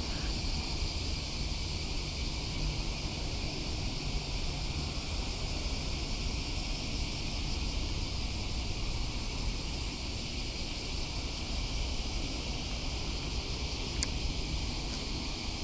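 Wind buffeting the microphone, a steady low rumble, over a constant high-pitched hiss, with a single sharp click near the end.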